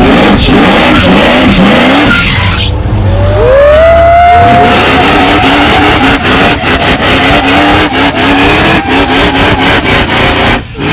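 A 1980s GM G-body coupe doing a burnout: the engine revs hard while the spinning rear tire squeals, with a rising squeal about three seconds in. Through the second half the revs rise and fall about twice a second.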